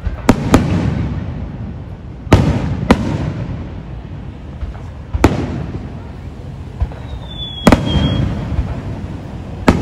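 Aerial firework shells bursting overhead: about seven sharp bangs a second or two apart, some in quick pairs, each followed by a rolling rumble. There is a brief high whistle about eight seconds in.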